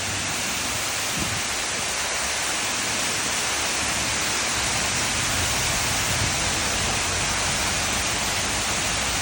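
Man-made waterfall: water pouring down and splashing in a steady rush.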